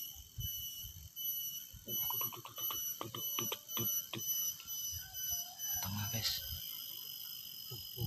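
Insects droning with a steady high-pitched buzz. A run of irregular clicks and knocks comes between about two and four and a half seconds in.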